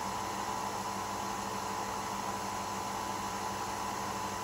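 Nespresso Vertuo coffee machine running with a steady hum as it spins the capsule (centrifusion brewing) and pours coffee into a glass.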